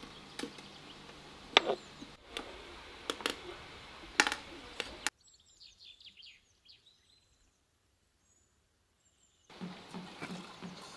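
Sharp clinks and knocks of kitchen utensils, metal pot and glass bottles. Then a stretch of near quiet with a few birds chirping. Near the end, peach juice pours from a metal jug through a plastic funnel into a glass bottle, with a quick regular pulse of about four beats a second.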